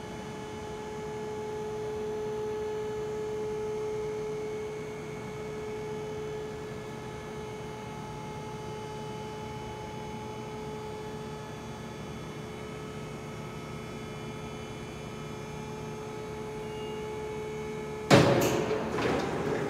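Raymond 10,000 lb side loader truck lowering its mast and carriage: a steady electric hum, its tone swelling a few seconds in. A sudden loud clunk and rattle near the end.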